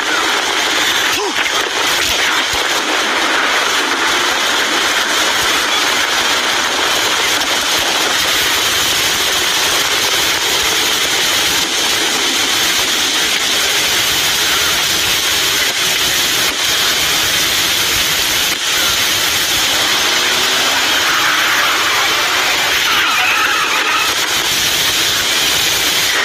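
Steady heavy rain: an even, unbroken hiss.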